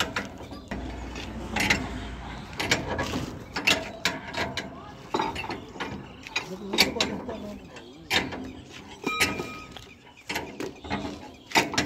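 Hand tools working on a combine harvester's drive wheel and belt pulleys: irregular metallic clicks, knocks and clanks of a wrench on the wheel nuts and of metal parts being handled, with a brief squeak about nine seconds in.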